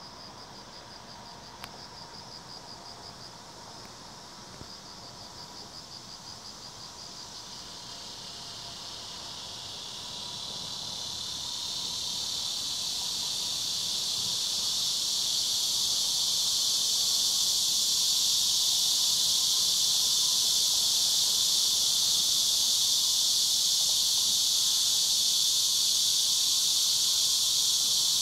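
Insects calling outdoors: at first a rapid pulsed trill, then a dense high-pitched buzzing that swells over about ten seconds and holds loud to the end.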